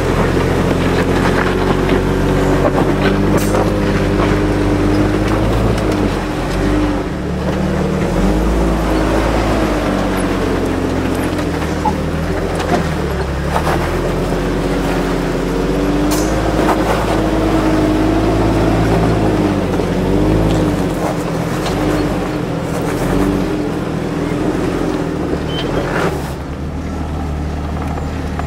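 Jeep engine running at low revs while rock crawling, its pitch rising and falling as the throttle is worked over the rocks, with a few short sharp knocks.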